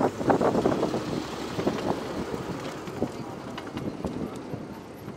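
Miniature railway train rolling past close by, with wind on the microphone. The rumble eases over the first second, and a couple of sharp clicks of wheels over rail joints come about three and four seconds in.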